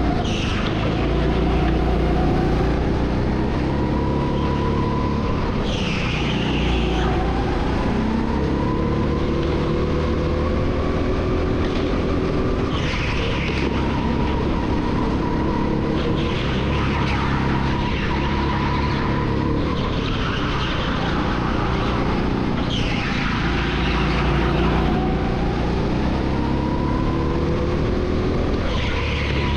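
Go-kart driven hard around a track, heard from on board: its motor's pitch rises and falls with speed through the corners, with short hissing bursts every few seconds.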